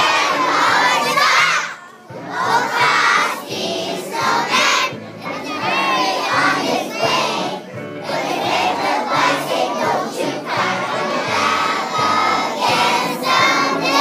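A group of kindergarten children singing loudly together on stage, with brief pauses between phrases.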